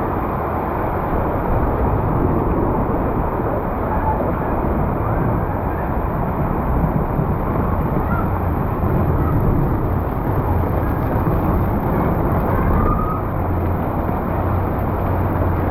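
Steady street noise of traffic in heavy rain: a continuous low rumble of vehicles mixed with a dense wash of rain and water.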